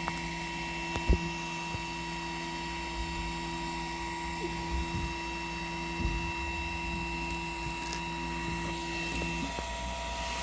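Toybox 3D printer running a print: a steady whine of several tones from its motors, with a few small clicks. The lower tones stop shortly before the end.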